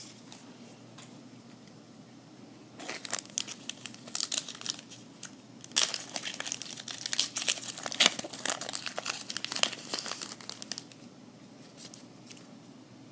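A trading-card pack wrapper being torn open and crinkled by hand: irregular crackly rustling that starts about three seconds in and stops a couple of seconds before the end.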